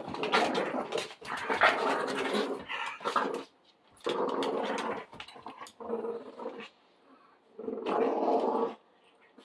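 Dogs play-growling while wrestling, a Presa Canario puppy and a Boston Terrier, in four rasping bouts with short pauses between, the longest lasting the first three seconds or so.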